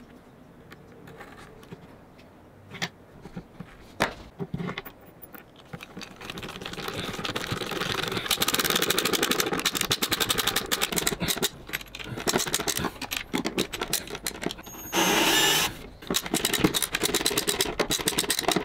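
Small screws being driven by hand with a screwdriver into a brass latch on a plywood lid: a few separate knocks, then from about six seconds in a dense run of rapid clicks and scrapes, with a short louder burst about fifteen seconds in.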